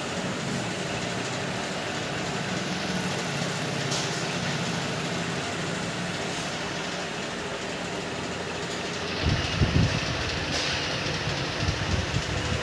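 Steady mechanical hum and hiss, with a few low thumps about nine to ten seconds in.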